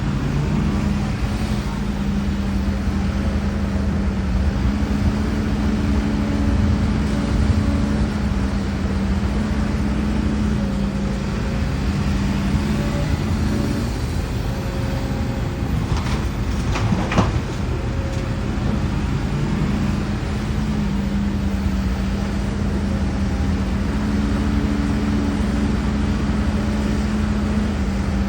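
HIDROMEK HMK230LC excavator's diesel engine running under working load, its pitch and strength rising and falling as the hydraulics work. A few sharp knocks come about sixteen to seventeen seconds in.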